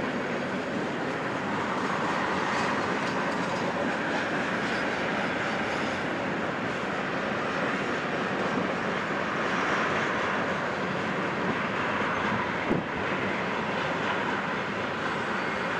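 Freight cars of a BNSF train, covered hoppers and a tank car, rolling steadily across a girder overpass, with the clickety-clack of wheels and one sharp click late on.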